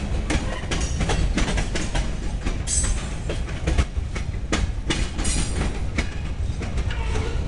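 Freight train cars (open-top hoppers and a tank car) rolling past: a steady low rumble with a rapid run of clicks as the wheels pass over the rail joints. A brief high wheel squeal comes about three seconds in and again just past five seconds.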